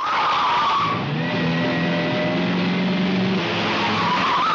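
Renault 16 engine running hard while its tyres squeal through a turn. The squeal is heard in the first second and again near the end.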